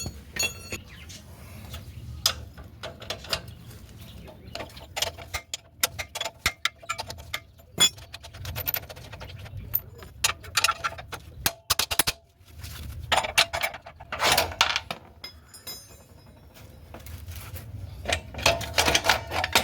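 Metal clicks and clinks of a 22 mm ring spanner working the main rear axle nut loose on a motorcycle, in irregular runs with denser clusters about two-thirds through and near the end.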